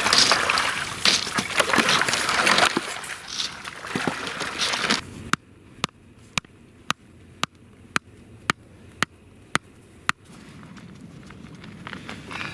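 Water sloshing and chunks of ice knocking as they are pushed about with a long pole in shallow river water, for about five seconds. Then a much quieter stretch with about ten sharp, evenly spaced clicks, roughly two a second.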